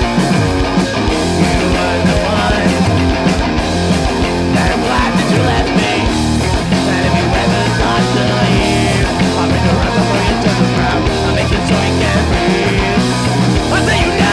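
Punk rock band playing live at a steady loud level: distorted electric guitar, bass and a drum kit.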